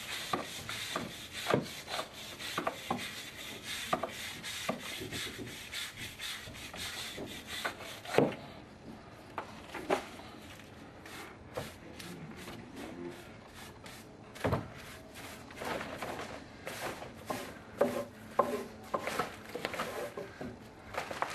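Scraping and rubbing against the foundation wall and wood studs behind opened drywall, broken by irregular sharp knocks and taps. It is busiest at the start and near the end, quieter through the middle.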